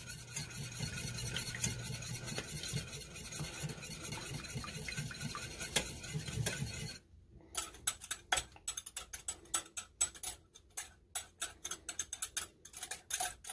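Wire whisk stirring liquid sauce in a stainless steel saucepan: a soft steady swishing at first, then, after a brief break about seven seconds in, quick irregular clinks of the whisk wires against the pot.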